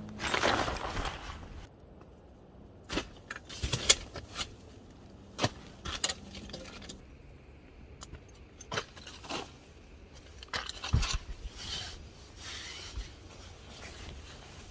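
Nylon tent fabric and a sleeping bag rustling as they are handled, with scattered light clicks and knocks of camping gear. A longer rustle comes at the start, then short rustles and clicks follow at irregular intervals.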